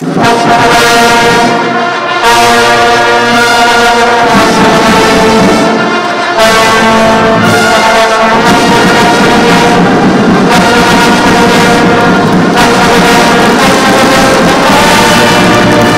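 Brass band playing loud, held chords in phrases, starting suddenly with short breaks about two and six seconds in.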